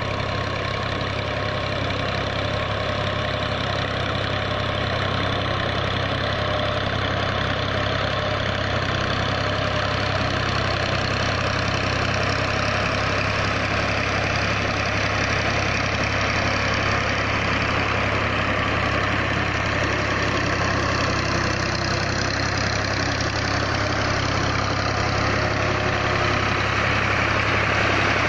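Ghazi farm tractor's diesel engine running steadily under load as it drags a cultivator through a flooded paddy field for puddling. It grows a little louder near the end as the tractor comes closer.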